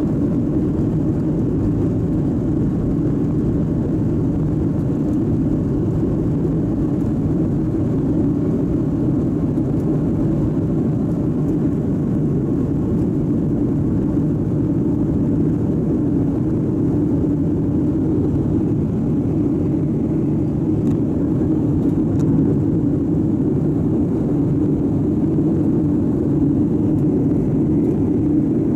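Boeing 737 turbofan engines at takeoff thrust heard from inside the cabin over the wing: a loud, steady engine noise as the jet rolls down the runway and lifts off.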